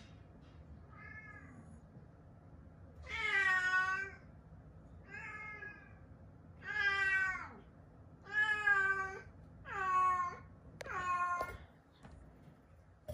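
Young domestic cat meowing repeatedly: a faint meow, then six louder drawn-out meows about a second and a half apart.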